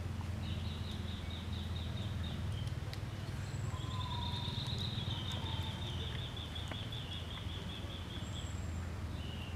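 Outdoor ambience: a steady low rumble with two high, rapid trills over it, the second one longer, about four seconds.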